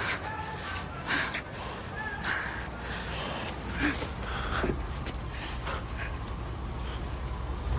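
Close kissing and breathing, with short gasps and wet lip sounds. About three and a half seconds in, the low rumble of street traffic comes up.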